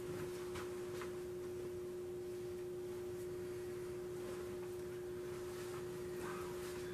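Quiet room tone under a steady hum at one pitch, with a couple of faint, soft handling sounds in the first second as the cloth is lifted away.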